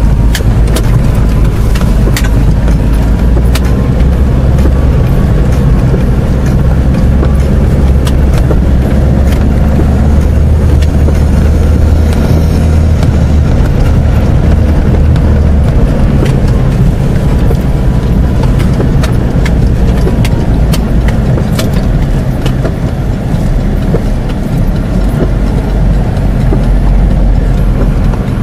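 Cabin noise inside an Isuzu Trooper 4x4 driving along a rough grassy track: a loud, steady low engine and tyre rumble with scattered sharp knocks as it bumps over the ground.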